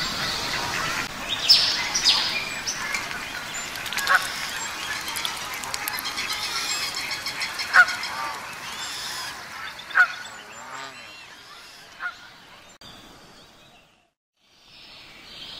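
Geese honking several times in single separate calls over a steady background of small birds chirping. The birdsong fades away near the end, breaks off briefly, then a fainter ambience comes in.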